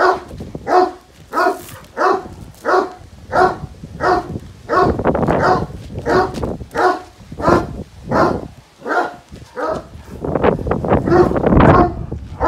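Dogo Argentino barking in a steady rhythm, about three barks every two seconds, excited at play with a man. Near the end the barks give way to a louder, rougher stretch as the dog takes hold of the rope tug toy.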